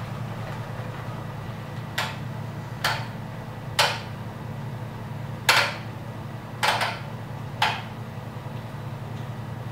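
Resistance-adjustment dial of a Power Magic Mag Plus magnetic spin bike clicking six times as it is turned, over a steady low hum. The drive itself is nearly silent, so the dial clicks are the loudest sound.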